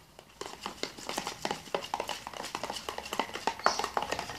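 A spoon stirring homemade jelly slime in a plastic tub: a quick, irregular run of wet clicks and squelches, starting about half a second in.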